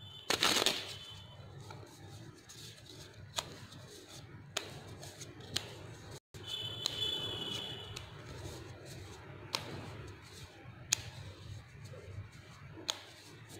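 A deck of playing cards handled and dealt out one at a time: a short rustle of the deck about half a second in, then scattered soft single clicks of cards being pushed off and set down every second or two, over a low room hum.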